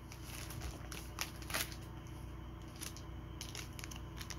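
Plastic and paper packaging handled and crinkled, with a few short sharp crackles, the loudest about one and a half seconds in.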